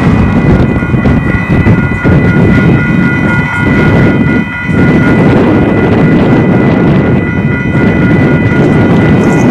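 Strong wind buffeting the microphone in gusts, easing briefly about halfway through, with a few faint steady high tones running under it.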